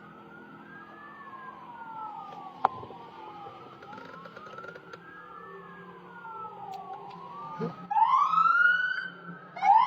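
Police sirens wailing, their pitch rising and falling slowly, with more than one siren overlapping. About eight seconds in, a siren grows much louder and sweeps faster.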